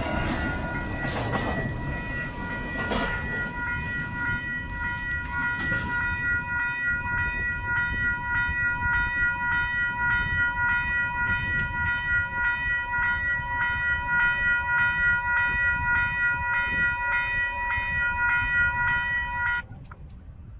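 Railroad grade-crossing bell ringing in rapid, even strokes, stopping abruptly about a second before the end once the train has cleared. Over the first few seconds the last double-stack container well cars rumble past with a few clanks.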